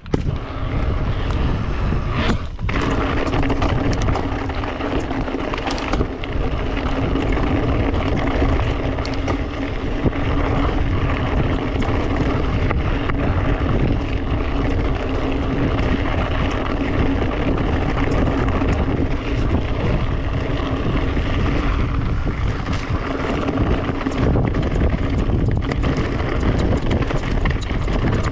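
Wind rushing over the microphone of a mountain bike on the move, with a steady low hum underneath.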